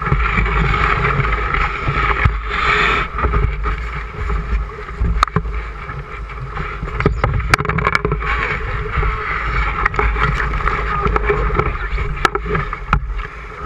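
Rushing, gurgling water of a shallow river riffle heard from a boat running through it, with low wind rumble on the microphone and occasional sharp knocks.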